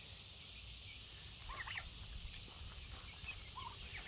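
Young domestic turkeys giving a few short chirping calls, a small cluster about one and a half seconds in and another near the end, over a steady high-pitched hiss of insects.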